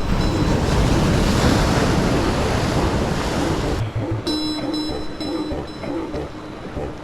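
Sea surf breaking and washing, a loud rushing that swells and eases over about four seconds; then background music with steady tones comes back in.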